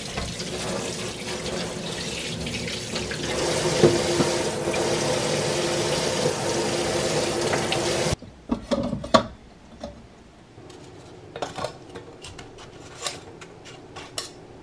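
Kitchen tap running steadily onto sweet potatoes being washed in a stainless-steel sink; about eight seconds in the water sound stops abruptly, leaving scattered light clicks and knocks.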